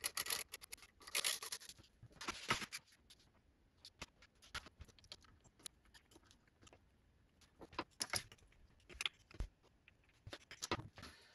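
Faint handling noise: a few short scrapes and scattered clicks as a small hand tool with a thin steel rod is handled and poked against the lathe's carriage and a plastic bracket.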